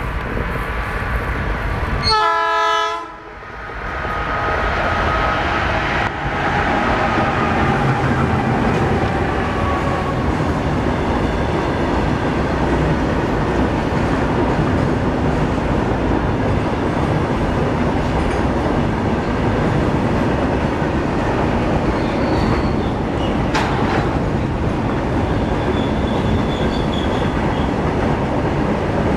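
Diesel locomotive horn giving one short blast about two seconds in, followed by a long freight train of covered wagons rolling past, a steady loud rumble with wheels clattering over the rail joints.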